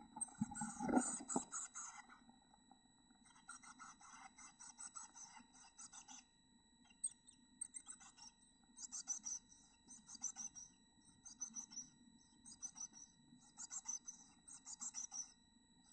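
Black-capped chickadee nestlings begging for food: raspy calls in quick bursts of rapid pulses, one burst after another, as a parent at the nest is fed to a gaping chick. A brief scuffling bump in the nest box comes at the very start.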